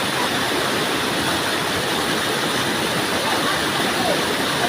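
Waterfall water rushing and splashing in a steady, unbroken roar of noise.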